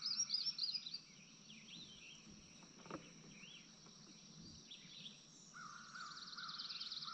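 Songbirds singing, several voices overlapping: a quick run of repeated chirps in the first second and a fast trill near the end, over a steady high insect buzz. One faint knock about three seconds in.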